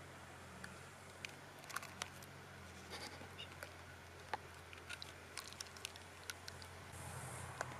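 Faint, scattered small clicks and taps of metal tweezers picking at the shell of a cracked egg, several a second at times, with a soft low hum underneath.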